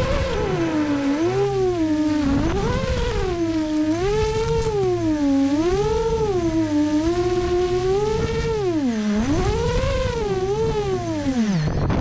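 FPV quadcopter's motors whining, the pitch rising and falling continuously as the throttle changes.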